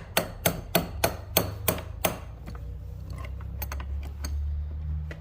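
Adjustable (crescent) wrench working the nut on a tractor's starter switch: about eight sharp metal clicks, roughly three a second, for two seconds, then a few fainter clicks, over a low steady hum.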